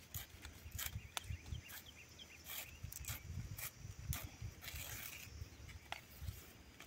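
Hands splitting and peeling a dry plant-fibre strip, giving irregular sharp crackles and snaps. Under it runs a low, uneven rumbling, with a few faint chirps.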